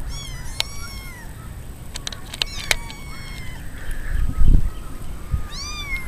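Young kittens mewing in short high-pitched cries, several near the start and another just before the end, with a few clicks and a low thump about four and a half seconds in.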